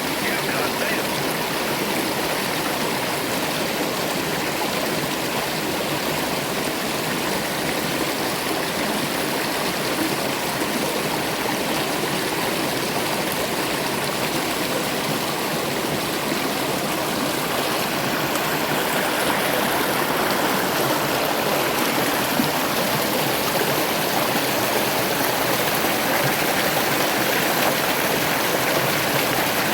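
River water rushing over rocks, a steady loud rush with no break, growing a little louder in the last third.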